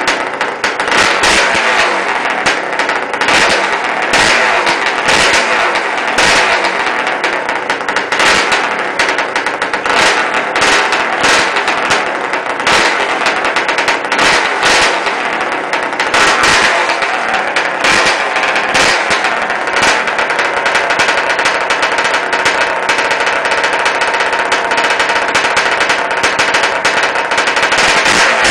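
The single-cylinder two-stroke engine of a 1983 Yamaha IT250 runs loudly with a rapid, uneven popping crackle. The engine has just been rebuilt, bored 1.5 mm over with a new piston and rings.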